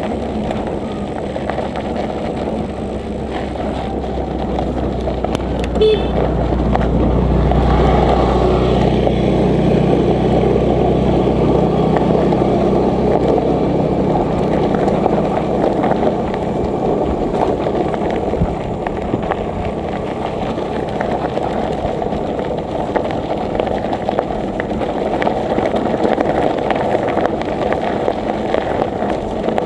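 Steady wind and road noise from riding a bicycle. A motor vehicle's engine draws near and runs close by from about five seconds in, loudest a few seconds later, then fades.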